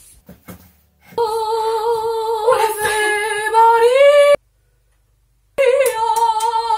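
A woman's voice holding a long, steady wailing note that rises a little at the end and cuts off abruptly. After about a second of silence, a second held note starts.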